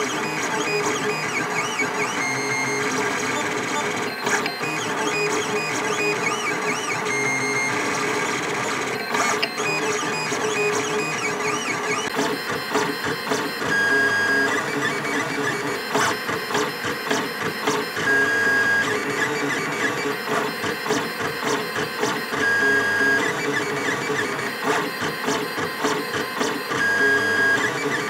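Lulzbot Mini 3D printer printing. Its stepper motors whine in short tones that keep jumping in pitch as the print head and bed move, over a steady hiss.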